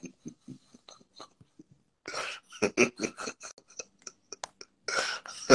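A man laughing hard in breathy, wheezing bursts. The laughter is quieter at first and grows louder from about two seconds in.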